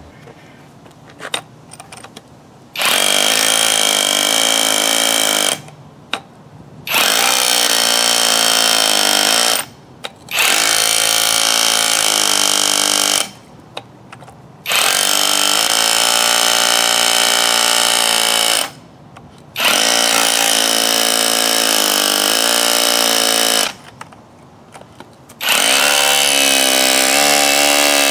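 Avhrit cordless hammer drill hammering a masonry bit into bricks mortared together, to break them apart. It runs in six bursts of three to four seconds each, with short pauses between them. Its pitch wavers as the bit bites.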